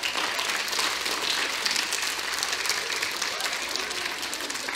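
An audience of children applauding, a dense steady clapping that eases off slightly near the end.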